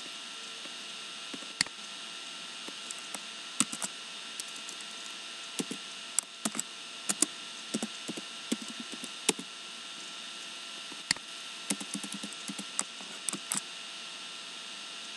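Computer keyboard typing: irregular clusters of sharp key clicks over a steady hiss with a faint hum.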